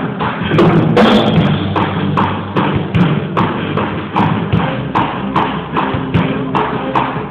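Worship music with a steady beat of sharp taps, about two and a half a second.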